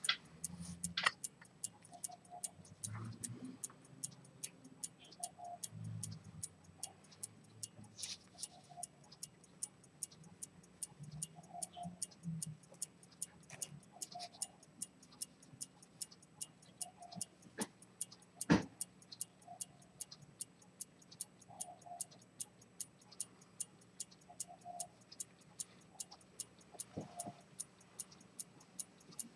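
Pivoted-detent (chronometer) escapement of a Swiss key-wound fusee pocket chronometer signed Dent, ticking steadily at about two and a half ticks a second. Faint music plays underneath, and there is one louder knock about eighteen seconds in.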